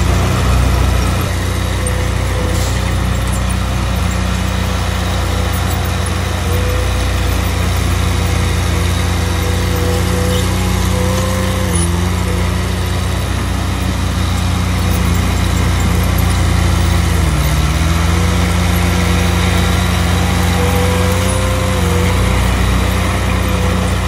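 Diesel engine of a Komatsu D31P bulldozer running steadily at working speed. Its pitch dips briefly three times, as it takes load.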